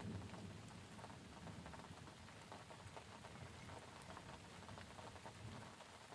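Soft rain pattering, a faint steady hiss of drops with many separate drips on a surface. A low thunder rumble dies away right at the start.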